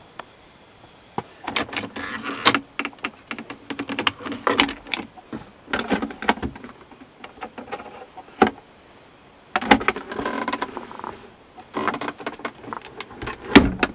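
Plastic centre console lids and the armrest storage compartment of a Volvo S80 being opened and handled: clicks, knocks and rustling in two bursts with a short pause about eight and a half seconds in, and a sharp click near the end.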